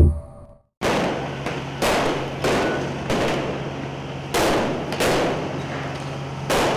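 Fireworks going off in a run of about seven loud bangs, each followed by a crackle that fades, over a steady low hum. Just before them, the tail of a short TV station jingle dies away.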